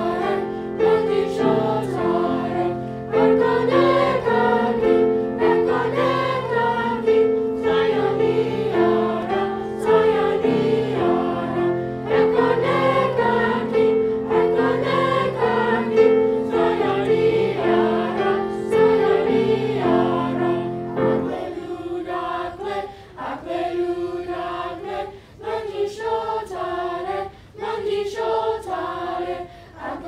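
A children's choir of sixth graders singing in parts, with steady low held notes under the moving melody. About two-thirds of the way through, the low notes drop out and the singing turns into short, rhythmic phrases.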